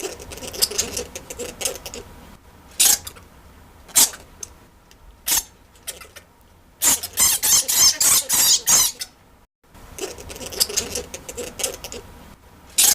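Bat squeaks and chittering: sharp, high, separate chirps, then a fast run of chattering calls in the middle and more chatter near the end.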